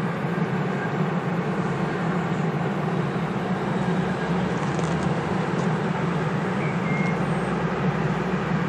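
DB class 152 electric locomotive hauling a container freight train as it approaches, giving a steady low rumble and hum.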